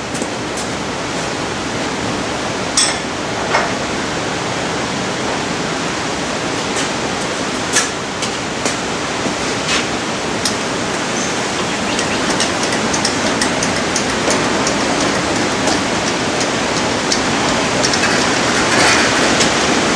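Steady hiss of rain on a metal shed roof, growing a little heavier about halfway through, with a dozen or so sharp clinks of a spanner against metal.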